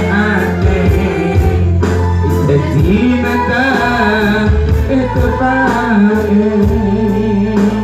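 Live band music through a PA sound system: a sung melody over keyboard, guitar and a steady beat.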